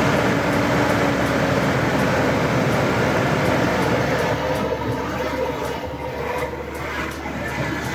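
2006 Land Rover LR3 engine running with its cooling fan blowing hard, a loud steady rushing noise that eases slightly about halfway through. It is the first run after a radiator replacement, with the cooling system drawing in coolant.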